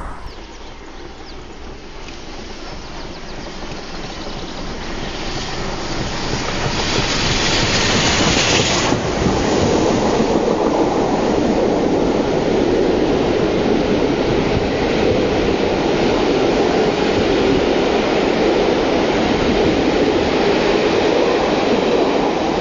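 Steam-hauled train coasting past: Bulleid Battle of Britain class locomotive 34067 Tangmere approaches and passes, the rumble growing louder with a brief high hiss about six to nine seconds in. Then the coaches' wheels keep up a steady rumble and clatter on the rails.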